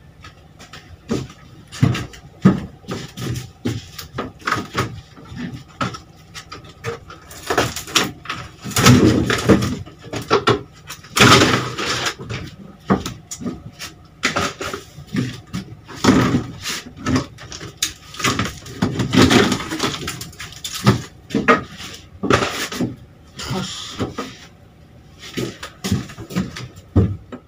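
Irregular knocks, clatters, scraping and rustling of hands-on work inside the bare metal and wood cargo bay of an old Toyota Kijang as parts are pulled out and handled.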